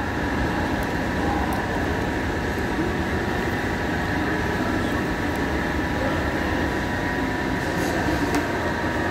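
Steady food-court background noise: a constant hum of ventilation and clatter with an indistinct murmur of many voices.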